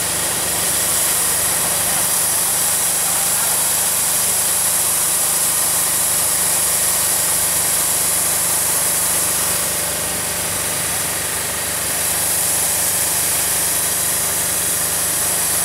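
DJI Agras T40 agricultural spraying drone flying with a steady whir of its rotors, carrying a load of granular fertilizer. The sound dips slightly about two-thirds of the way through.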